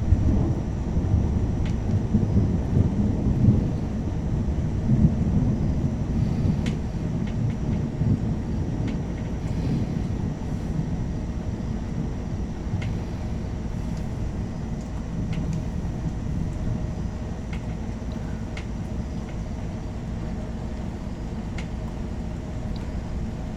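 Distant thunder rumbling, loudest in the first few seconds and then slowly dying away over a steady low hum.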